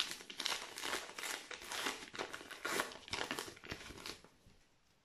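Plastic wrapper of a Topps Match Attax trading-card pack crinkling as it is torn open by hand, stopping about four seconds in.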